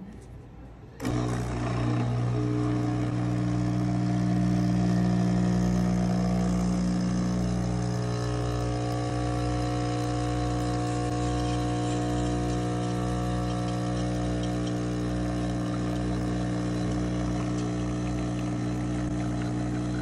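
The De'Longhi Stilosa espresso machine's 15-bar vibratory pump switches on about a second in and buzzes steadily while it pulls an espresso shot.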